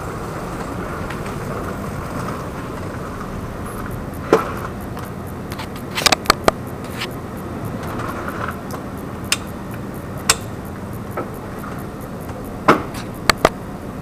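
Hero Honda Karizma's single-cylinder engine idling steadily, with a scatter of sharp clicks and knocks, the loudest near the end.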